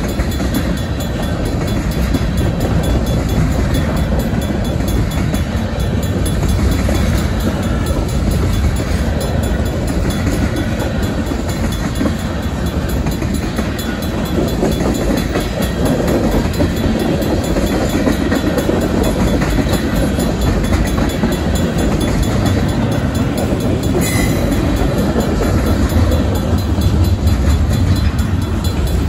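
Freight train cars rolling past at a grade crossing: a steady rumble of steel wheels on rail with clickety-clack, as tank cars and then gondolas go by. A brief sharp noise stands out near the end.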